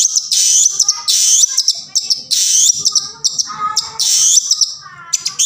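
Long-tailed shrike (cendet) calling: a string of loud, harsh, high notes repeated about once or twice a second, with softer chirps between them, easing off near the end.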